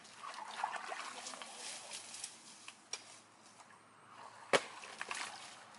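Hands digging into wet mud and soil at a crab burrow, breaking through twigs and roots with scattered sharp snaps and knocks. The loudest is a single sharp snap about four and a half seconds in.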